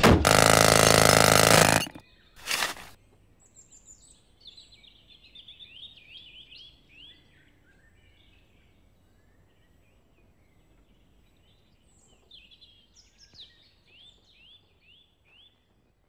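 Jackhammer running loudly, then cutting off about two seconds in, with one short burst shortly after. Then faint birdsong: two spells of quick, repeated downward-sweeping chirps.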